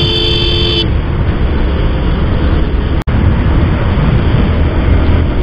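Steady, loud riding noise from a Bajaj Pulsar 150 motorcycle on the move: engine and rushing air. A horn beeps briefly and stops about a second in, and the sound cuts out for an instant about three seconds in.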